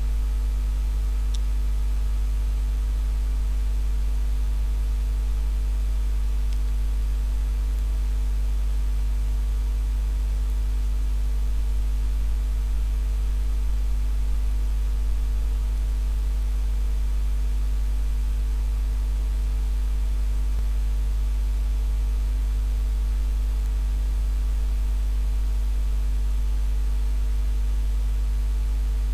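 Steady electrical mains hum: a low, unchanging hum with faint hiss and nothing else.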